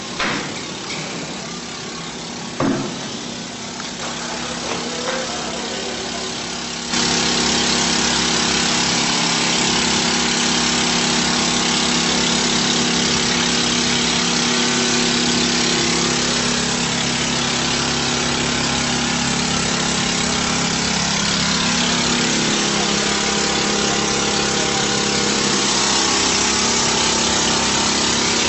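An engine running steadily under a loud hiss, with a couple of sharp clicks in the first few seconds. About seven seconds in the sound jumps abruptly louder and holds steady.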